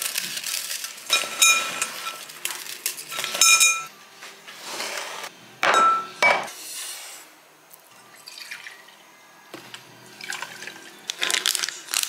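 Biscuits being broken up by hand in a glass mixing bowl: crunching and rattling, with a few ringing clinks off the glass. A saucepan is then handled and set down on the counter.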